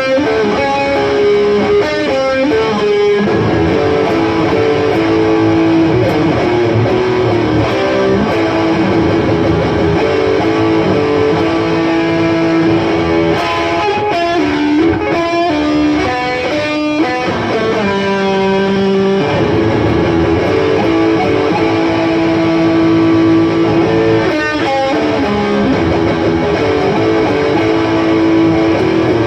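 Guitar being played: held notes that change pitch every second or two, with a few strummed chords between them.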